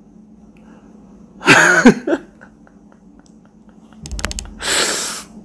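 A man's stifled laughter with his hand over his mouth: a short voiced laugh about a second and a half in, then near the end a bump and a long breathy exhale.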